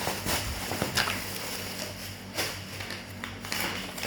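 Handling noises: several separate light clicks and rustles over a steady low background hum.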